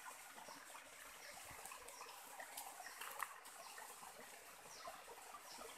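Faint shallow stream trickling over rocks, with a few small ticks and one brief sharper knock about three seconds in.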